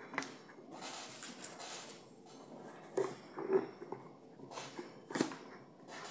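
Pliers turning a threaded bolt tight into a plastic bottle cap: scattered clicks and knocks of metal on plastic with light rustling of the bottle, the sharpest knocks about three and five seconds in.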